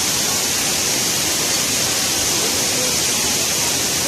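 Waterfall, a steady, loud rush of falling water.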